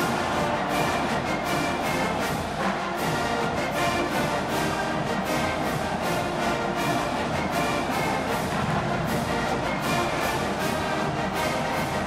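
Marching band playing continuous brass-heavy music.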